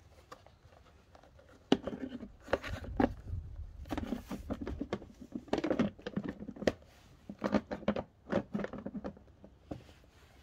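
Handling noise: irregular knocks, rubs and rattles of hard parts being moved about, starting about two seconds in and stopping shortly before the end.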